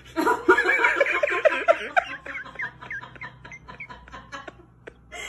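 A person laughing in a quick run of pitched bursts, loud at first and fading out after about three seconds, followed by a few faint clicks.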